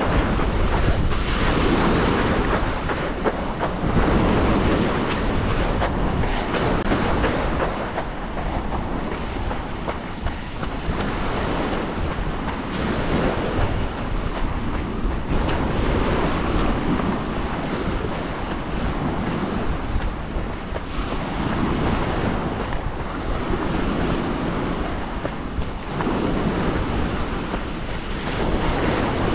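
Small waves breaking and washing up a pebbly beach, swelling and easing every few seconds, with wind buffeting the microphone.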